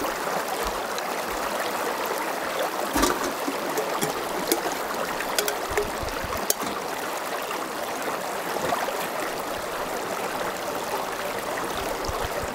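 A small stream running steadily over stones, with a few short knocks and splashes as water is scooped and poured into an aluminium pot.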